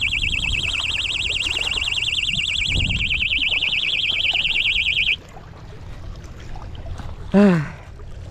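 Electronic fishing bite alarm sounding a fast-warbling tone for about five seconds, then cutting off suddenly. A short vocal exclamation follows near the end.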